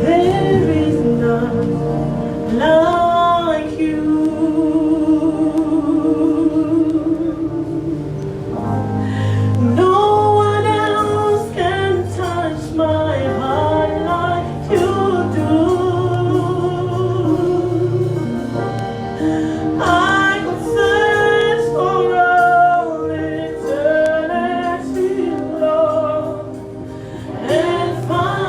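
Gospel worship music: a sung melody in long, wavering phrases over sustained instrumental chords and bass.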